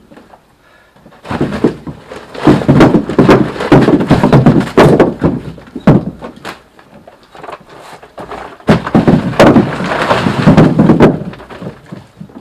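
Split firewood logs knocking and clattering against one another as they are handled and stacked, in two loud spells of rapid wooden clunks with a short lull between.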